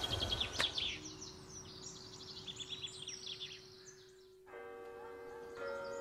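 Small birds chirping, many quick high calls over a faint steady hum. About four and a half seconds in, this cuts suddenly to a chord of several steady held notes.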